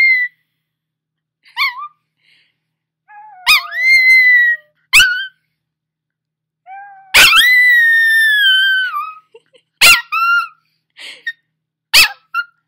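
A puppy howling in high, squeaky wails: a few short yips and two drawn-out howls of one to two seconds, the longer one holding its pitch and sagging at the end. The squeakiness is what the owner puts down to his having just woken up.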